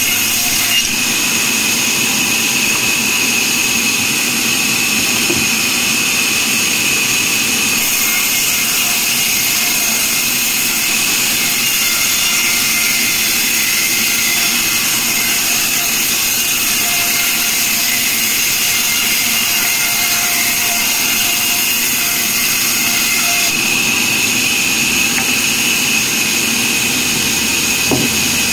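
Large vertical band saw ripping a log lengthwise: a loud, steady whine over a hiss of cutting, without let-up.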